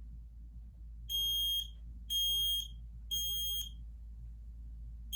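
Kidde smoke alarm sounding its test in the temporal-three pattern: three shrill beeps about a second apart starting about a second in, a pause, then the next set of three beginning near the end.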